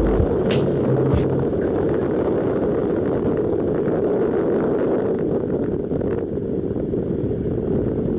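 Rallycross car running along a dirt course, its engine and road noise mixed with wind on the hood-mounted camera's microphone, steady throughout.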